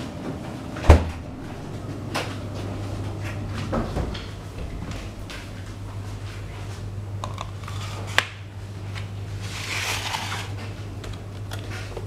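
Handling noise from a plastic project box being moved about: a sharp knock about a second in, smaller clicks and bumps, another sharp click around eight seconds in and a short rustle or scrape near ten seconds, over a steady low hum.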